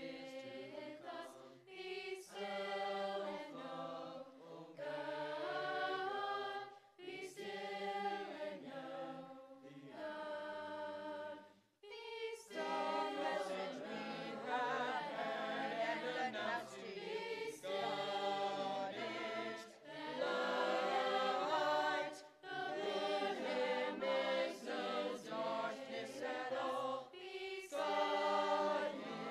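Mixed youth chorus of teenage boys and girls singing in harmony, in phrases with brief pauses between them, the longest a little before halfway.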